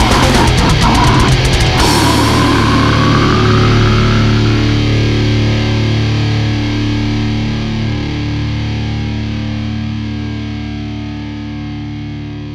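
Heavy metal band playing with pounding drums and crashing cymbals, then stopping about two seconds in on a held distorted electric guitar chord that rings on and slowly fades, with a feedback tone sliding upward as the chord starts to sustain.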